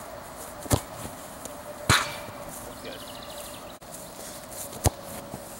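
Soccer ball struck hard: three sharp thumps, one under a second in, a louder one about a second later, and another near the end, as shots are kicked at the goal.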